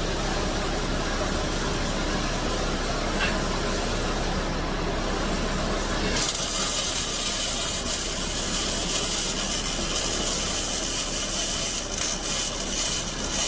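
MIG welding arc running steadily on 16-gauge aluminized steel sheet, an even hiss and crackle of the wire burning into the seam during an overhead pass. About six seconds in the sound turns sharper and brighter.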